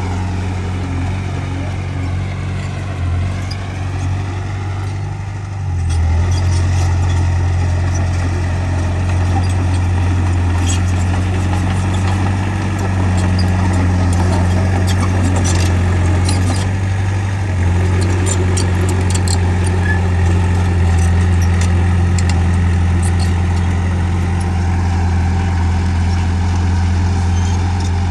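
Bulldozer's diesel engine running steadily under load, with a low hum that drops briefly about five seconds in and then comes back stronger. Light clicks are heard over it now and then.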